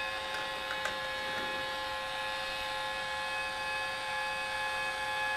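Celestron Advanced GT mount's drive motors slewing with a steady whine, a couple of faint clicks about a second in. The mount runs on without stopping when it should, a fault that drives the telescope toward the tripod leg.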